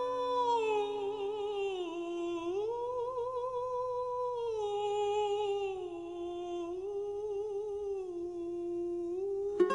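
A lone voice humming a slow, wordless melody in long held notes, stepping up and down between a few pitches, with a slight waver on some notes.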